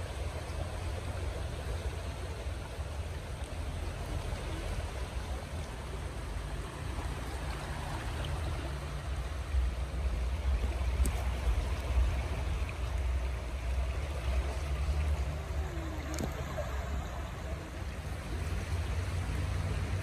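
Shallow rocky stream running steadily: an even rush of water with a deep rumble under it.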